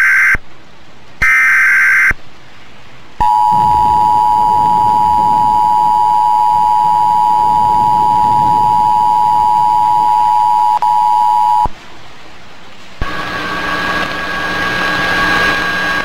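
Emergency Alert System tones for a National Weather Service tornado warning: the tail of a short buzzing digital header burst, a second burst about a second later, then the steady two-tone attention signal held for about eight seconds. It cuts off into a steady radio hiss.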